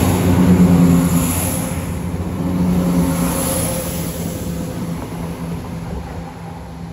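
Diesel multiple unit pulling out of the station, its engines running with a steady low drone that fades as the train draws away.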